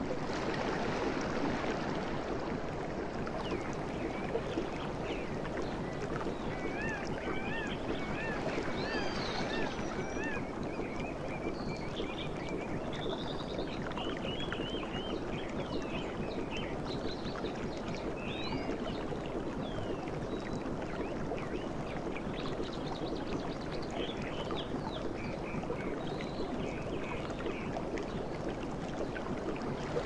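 Steady sea surf washing onto a beach. Birds call over it off and on, with a run of wavering repeated calls about a quarter of the way in.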